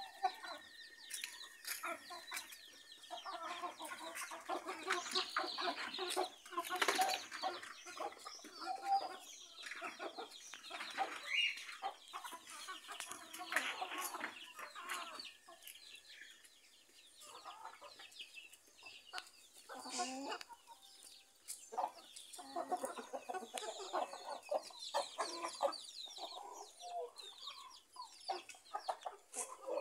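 A flock of chickens, hens and roosters, clucking in short, irregular calls, with busier spells where several birds call at once.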